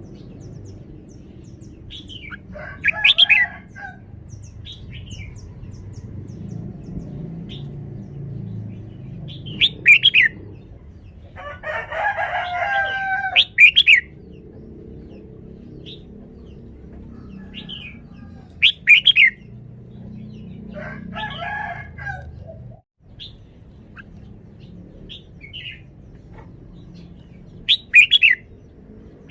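Red-whiskered bulbul singing short, loud, warbling phrases every few seconds, about six in all, with fainter chirps between, over a low steady background hum.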